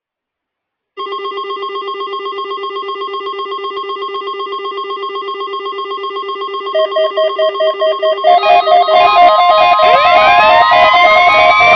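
Weather radio receivers sounding their electronic alert alarms for a required weekly test. A rapidly pulsing beep starts about a second in, and a second, higher pulsing beep joins around seven seconds in. Near the end a siren-like tone sweeps up in pitch and holds.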